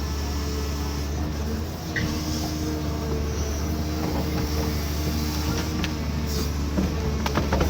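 Cat 320D2 hydraulic excavator's diesel engine running steadily, with a few sharp knocks near the end.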